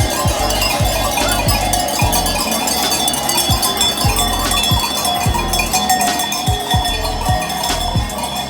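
Many cowbells clanging irregularly and overlapping, with ringing metallic tones and scattered low thuds.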